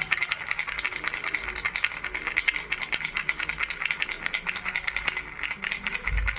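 Baby rattle shaken continuously, a dense, fast clatter of small clicks.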